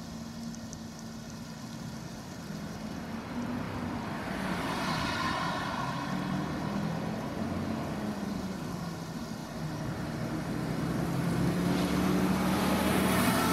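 Diesel engines of Volvo crawler excavators running steadily, swelling in loudness about four seconds in and again near the end, where a rising whine comes in.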